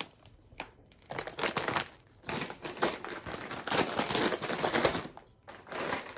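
Plastic pretzel bags crinkling as they are handled and pushed down into a woven wicker basket. The rustling comes in irregular bursts with short pauses.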